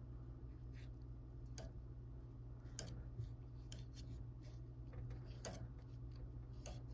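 Faint scattered light clicks and rubs over a steady low hum.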